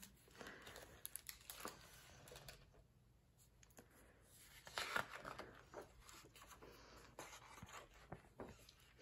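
Faint rustling and crinkling of a hardcover picture book's pages being handled and turned, in two spells: one shortly after the start and a louder one about five seconds in.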